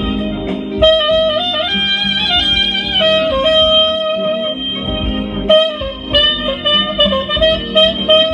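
Soprano saxophone playing a slow melody: a run of stepping notes, then a long held note, then shorter phrased notes near the end.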